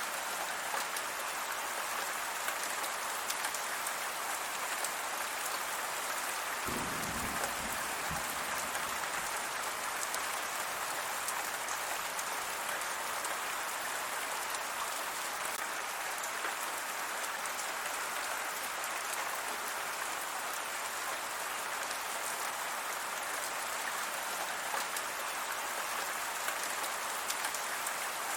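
Steady rain falling and pattering on surfaces, an even hiss that holds its level throughout. A brief low rumble comes about seven seconds in.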